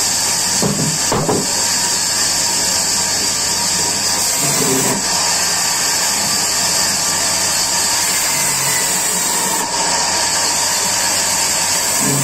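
Sawmill saw running and cutting through a log slab, a steady hissing noise.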